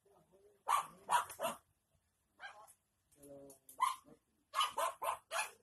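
A dog barking in short sharp barks: a quick run of three about a second in, single barks after that, then a fast run of barks near the end.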